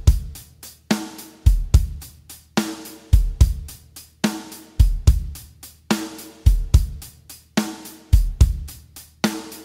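Drum-kit backing track playing the Greek exari rhythm in 6/8 at 72 beats per minute. Bass drum, snare and hi-hat repeat the same bar over and over, with a loud snare accent about every second and two-thirds.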